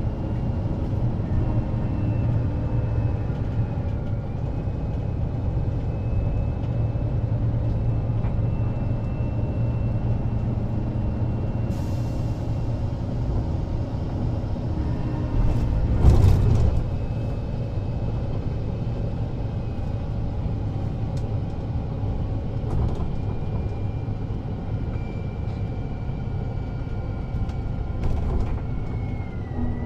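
Mercedes-Benz O407 city bus under way: its diesel engine and ZF Ecomat automatic gearbox run steadily with a low rumble and a faint high whine. A brief loud burst of noise comes about halfway through, and near the end the engine tones fall in pitch.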